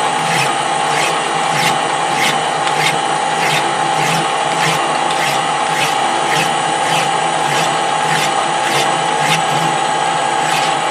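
A hand file stroking against a small metal part spinning in a machine, with a steady motor whine beneath. The strokes come about twice a second, evenly paced.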